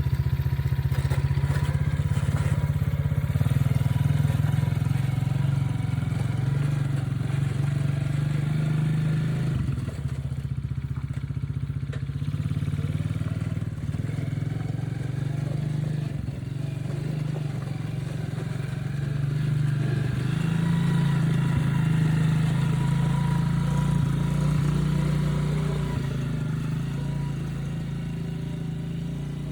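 Coolster 125cc ATV's small single-cylinder four-stroke engine running as the quad is ridden about, its note and loudness shifting with the throttle.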